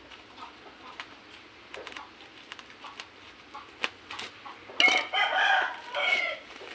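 A rooster crowing once, loudly, about five seconds in, with a short break before its final part. Faint scattered clicks come before it.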